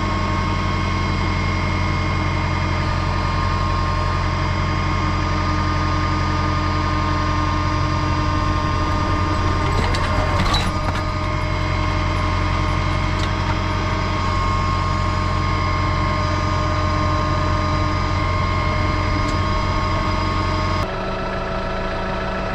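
Tractor engine idling steadily, heard from the seat. A brief clank comes about ten seconds in, and the engine note steps down slightly near the end.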